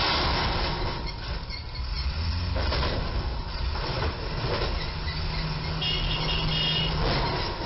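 Box truck's diesel engine idling and moving under a low railroad bridge amid street traffic, with a rough scraping hiss at the start. A high-pitched squeal comes in about six seconds in as the truck backs out from under the bridge.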